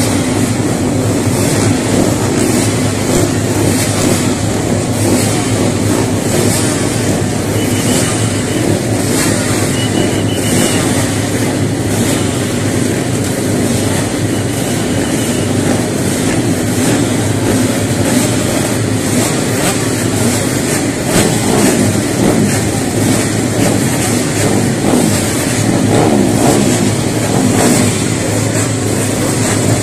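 Several road-racing motorcycles' engines running together on the starting grid: a loud, steady engine drone with many short rises.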